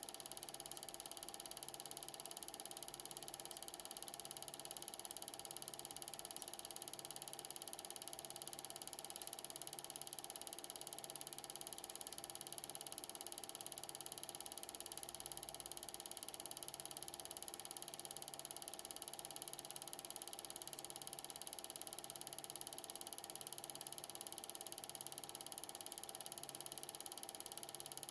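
An 8mm film projector running: a steady mechanical whirr with a high hiss, under a low hum that swells about every second and a quarter.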